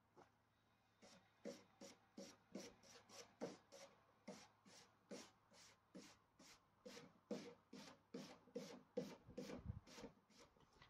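Rhythmic hand brushing or scrubbing strokes on a long piece of stock, about three a second, starting about a second in.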